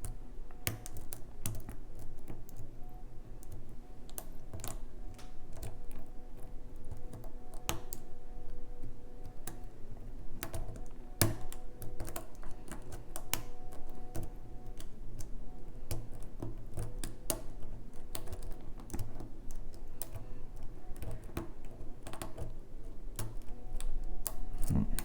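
Lock pick and tension wrench working the pins of a six-pin tumbler lock cylinder: irregular small metallic clicks and taps as the pins are probed and set, with a somewhat louder cluster near the end.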